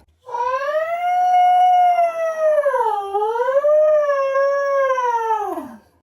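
One long howling cry held about five seconds, wavering in pitch, dipping about halfway through and sliding down as it dies away: a scream sound effect.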